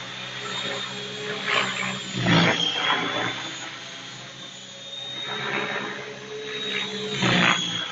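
Large RC helicopter flying overhead with a steady high whine. Its rotor blades whoosh in loud surges as it manoeuvres, the biggest about two seconds in and again near the end.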